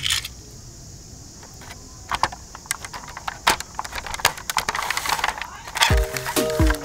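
Scattered light plastic clicks and taps from toy cars being handled. About six seconds in, an electronic tune with a steady thumping beat starts.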